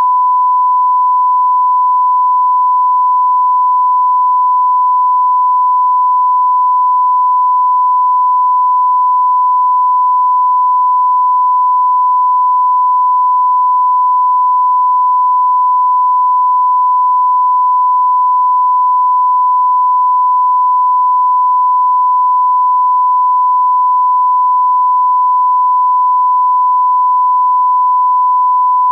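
A loud, unbroken electronic test tone, a single pure pitch held perfectly steady in pitch and level, of the kind played under a 'no signal' screen.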